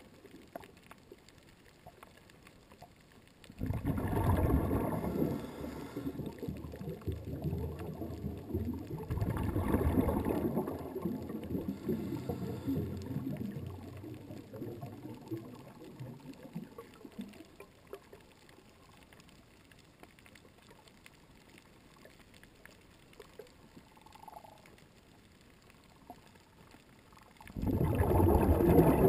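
Muffled water noise picked up underwater through a GoPro's waterproof housing. It is low and without a clear tone, and swells in washes about 4 s in, again around 9 to 12 s, and near the end, with quiet stretches between.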